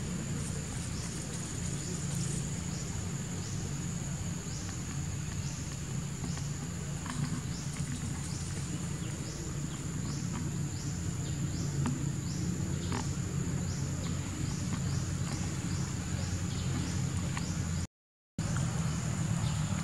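Outdoor forest ambience: a steady low rumble under a high, steady insect drone, with a short falling chirp repeating about once a second and a few faint clicks. The sound drops out completely for a moment near the end.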